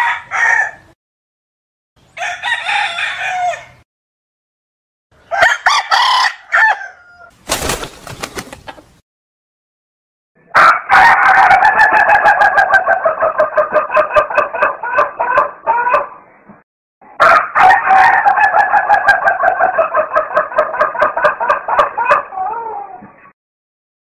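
Domestic rooster crowing: three separate calls, then two long stretches of rapid, pulsing calls in the second half, each lasting several seconds.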